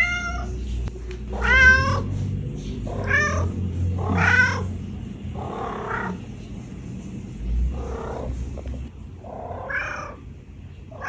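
Black-and-white domestic cat making a string of about seven short trilling meows, one every second or so, over a low steady purr that stops near the end. These are purr-meows, which the owner takes as the sign of a contented cat calling to its people.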